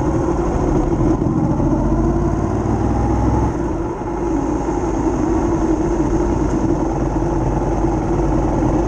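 Sport motorcycle engine running at low speed, heard from onboard. The engine eases off briefly about four seconds in, then picks up again.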